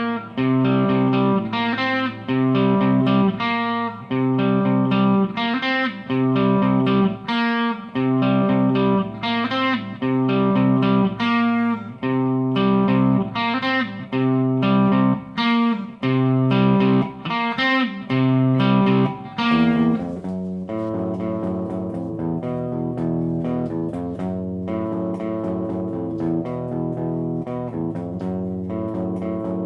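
Electric guitar played through a Line 6 POD Pro amp modeler: loud chord stabs in a steady rhythm with short gaps for about twenty seconds, then a softer, steadier passage.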